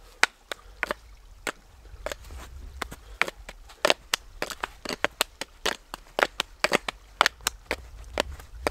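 Training knife striking the bark of a tree trunk in a fast, irregular run of sharp knocks, about four a second.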